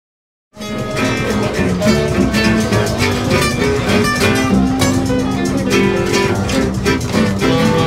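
Small swing jazz band playing, led by strummed acoustic guitar with other instruments, starting suddenly about half a second in.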